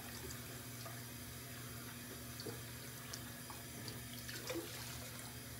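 Bathroom sink faucet running steadily, with scattered small splashes as a washcloth is rinsed under it.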